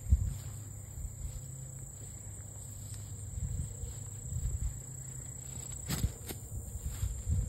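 Footsteps through tall grass and rubbing of the handheld phone, under a steady high-pitched buzz of field insects. A couple of sharp knocks come about six seconds in as a stick is thrown.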